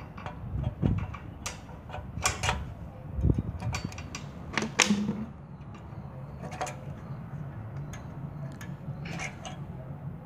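Scattered metal clicks and knocks as a carburetor is handled, unbolted and refitted on a petrol generator, with a low steady hum underneath.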